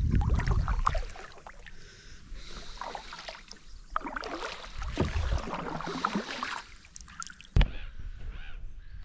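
Kayak paddle dipping and splashing in the water in irregular strokes, with a sharp knock about seven and a half seconds in.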